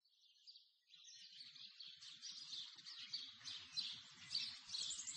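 Faint birdsong, many quick high chirps overlapping, starting within the first second and growing steadily louder.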